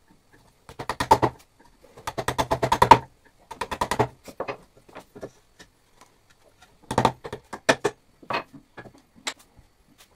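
Hand-tool work on the wooden pedestal of a turned plate, a chisel scraping and knocking against the wood: several quick runs of rapid clicks, about a dozen a second, with short pauses between.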